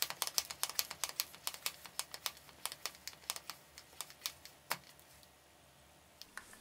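Quick, sharp mechanical clicks, several a second and irregular, thinning out and stopping about five seconds in, with two more near the end, as hands work the base of a homemade pneumatic foam-dart launcher.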